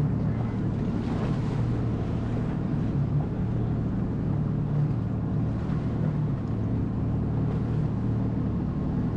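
Jet ski engine running steadily at low speed, an even hum that holds level throughout.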